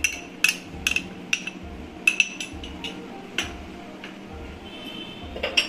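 A utensil clinking and tapping against a stainless-steel kadai, a quick run of sharp clinks through the first few seconds and two more near the end, as ghee is spooned into the oil. Soft background music with a steady beat underneath.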